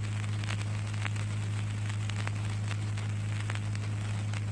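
Steady low electrical hum under an even hiss, with scattered faint crackles and clicks: the background noise of the recording equipment, heard in a pause between verses of Quran recitation.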